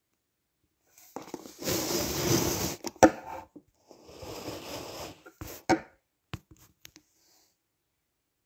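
Rustling and handling noise close to a phone's microphone in two stretches, with a sharp click about three seconds in and several short clicks a little later, then quiet.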